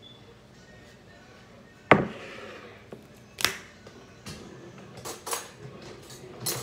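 Kitchen dishes being handled on a countertop. A sharp clack comes about two seconds in and is the loudest sound, another follows about a second and a half later, and then there are several lighter taps and clicks as a large bowl is set down and moved on the counter.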